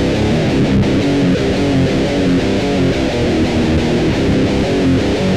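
Theme music led by strummed guitar, with a steady, dense run of changing notes.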